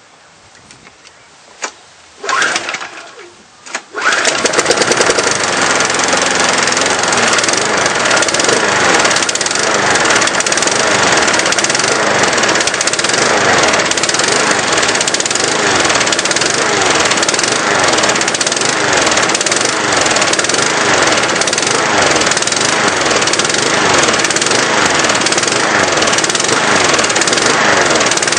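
Petrol lawnmower engine fuelled with 25% nitro fuel and engine oil in the tank, cold-started with a few short tugs of the pull cord. It catches about four seconds in and then keeps running at a steady speed.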